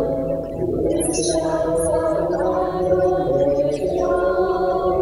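A hymn sung in church, with long held notes changing every second or so.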